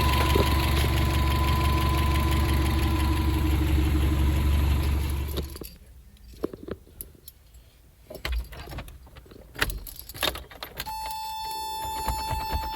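Toyota 22RE four-cylinder engine running steadily, then cutting off suddenly about five and a half seconds in. After it, scattered light clicks and rattles, and a steady high electronic tone from about eleven seconds on.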